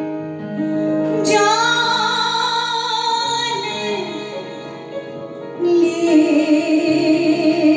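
Song intro: steady instrumental accompaniment with a female voice coming in about a second in on a held note that slides up, then a fuller sung phrase near the end.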